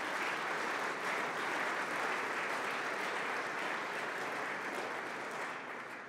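An audience applauding, a steady dense clapping that starts to die away near the end.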